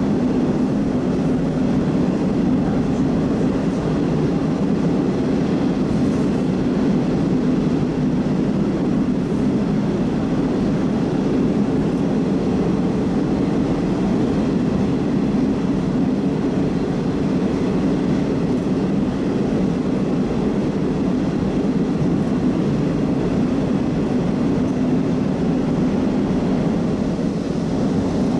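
Moscow metro 81-765 'Oka' train running at a steady speed, heard from inside the car: an even, unbroken rumble of wheels and running gear on the rails.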